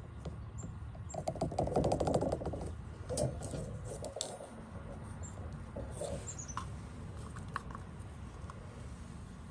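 Handling noise: a burst of rustling and crackling about a second in, then scattered lighter clicks and knocks.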